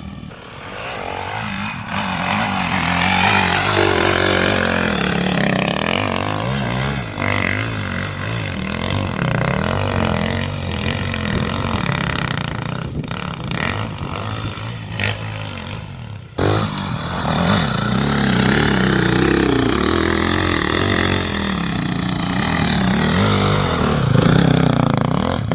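Dirt bike engines revving up and down as they ride, the pitch rising and falling with the throttle. The sound breaks off abruptly about 16 seconds in and picks straight up again.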